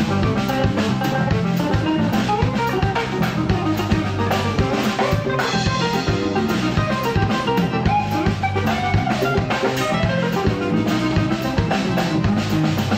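Live band playing an instrumental: hollow-body electric guitar over a drum kit, electric bass and accordion, with a steady drum beat.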